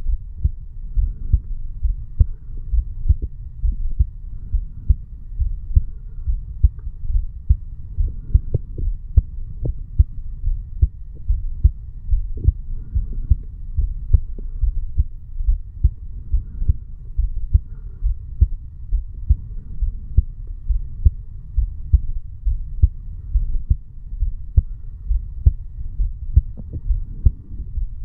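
A 35-year-old man's heartbeat picked up over the mitral (bicuspid) valve area of the chest: regular, evenly spaced low thuds over a steady low hum.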